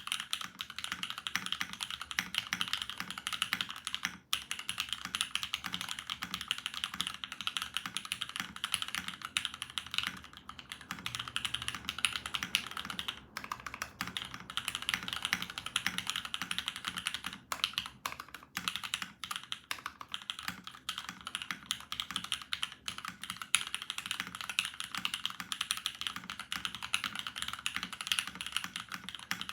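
Continuous fast typing on a custom mechanical keyboard with lubed Cherry MX Black linear switches, PBT keycaps and an aluminium plate: a dense stream of muted keystroke clacks with a few brief pauses.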